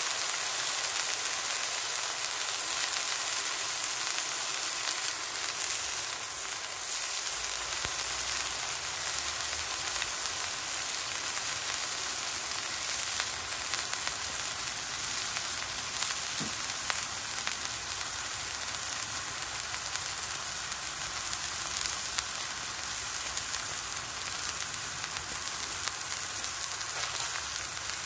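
Food frying in a pan on a Trangia camping stove: a steady sizzle with scattered crackles and spits, slowly easing off in level.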